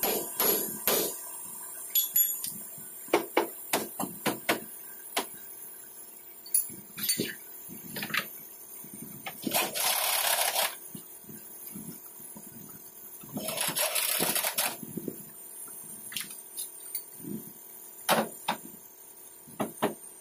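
Scattered knocks and clicks of tools and metal parts being handled while a bumper is fitted. Two hissing bursts of about a second each come near the middle.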